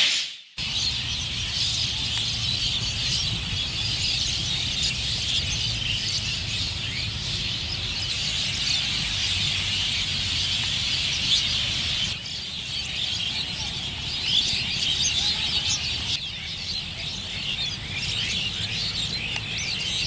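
A dense chorus of a large flock of birds, many chirping and calling at once. The chorus dips briefly twice, about twelve and sixteen seconds in.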